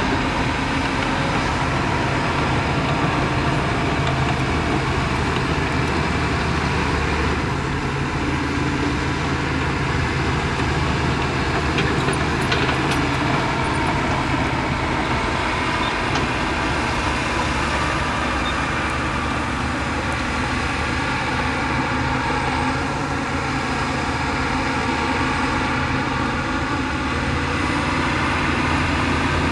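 Heavy diesel earthmoving machinery running steadily under load, a continuous engine sound with a strong low rumble.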